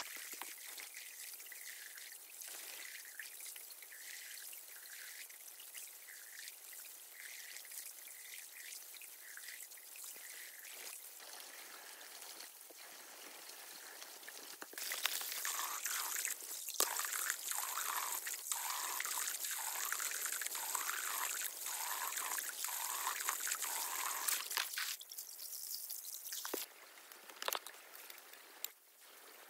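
Water pouring and trickling, growing louder and fuller about halfway through, then falling back near the end.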